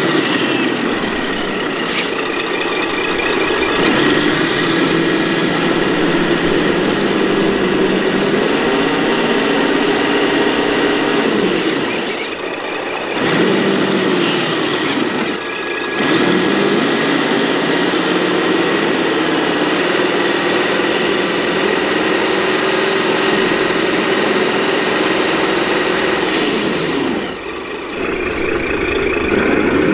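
Radio-controlled military trucks crawling through sand: a steady motor-and-gearbox whine that rises and falls with the throttle and drops away briefly three times.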